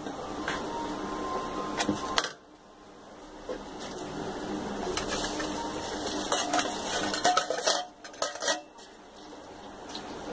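Steel vessels and a ladle clinking and knocking against a steel cooking pot as rice is tipped into the boiling water, with the pot bubbling underneath.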